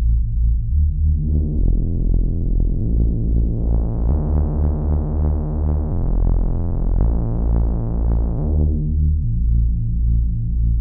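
Reese bass on a DIY analog synthesizer: detuned oscillators beating against each other, played as a repeating low bass line. The filter opens gradually from about a second and a half in, so the tone grows brighter, then closes again near the end.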